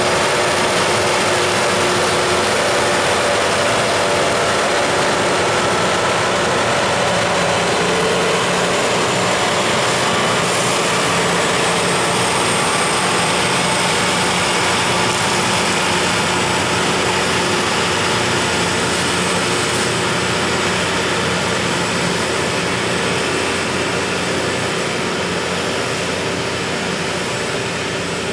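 Loram rail grinder working the rail: diesel engines running under the steady hiss and scrape of grinding stones on steel, one loud continuous mix that slowly fades toward the end.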